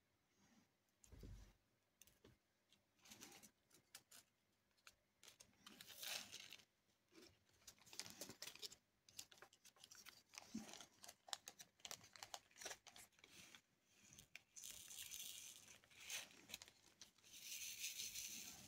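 Faint clicking and rustling of diamond-painting work: a drill pen picking small resin drills from a plastic tray and pressing them onto the adhesive canvas. Twice near the end comes a longer hissy rattle of the drills being shaken in the plastic tray.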